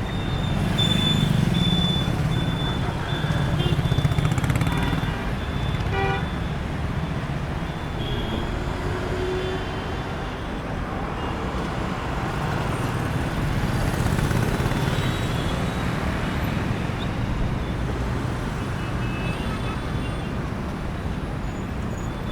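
City street traffic: a steady rumble of vehicle engines and tyres passing, with a short car-horn toot about six seconds in.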